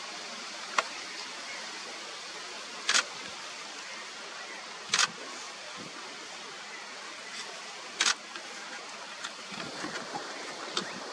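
Elephants feeding on doum palm fruit among dry fallen fronds: sharp cracks every two to three seconds over a steady outdoor hiss.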